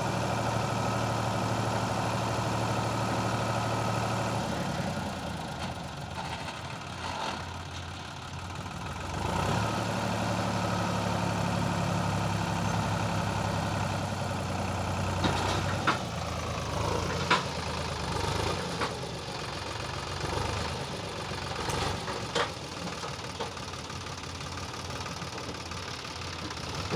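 Sonalika DI 740 tractor's diesel engine running, its revs rising and dropping twice while the trolley's tipping bed is raised to dump mud. A few sharp knocks come in the second half.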